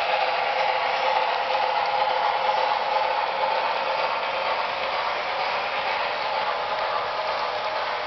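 HO scale model passenger coaches rolling along the track, a steady, unbroken mechanical running noise from their metal wheels and trucks.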